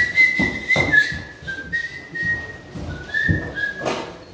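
A man whistling a tune, a clear melody moving between several held notes, stopping near the end, with a few knocks from him moving about and handling tools.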